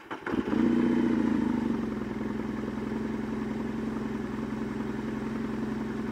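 Motorcycle engine just started: it catches, runs briefly at higher revs for about a second, then settles into a steady idle.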